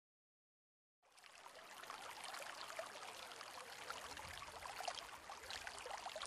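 Faint trickling, running water that fades in about a second in and then runs on steadily, with many small splashing drips.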